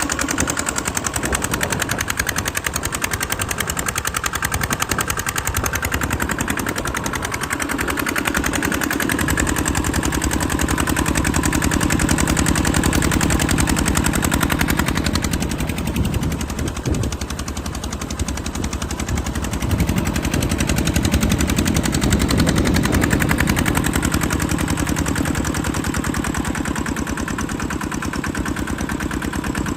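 Thale Thong TT110 single-cylinder diesel engine running steadily while driving an 8-inch long-tail axial-flow water pump, with a rapid, even firing beat. The level dips briefly a little past the middle.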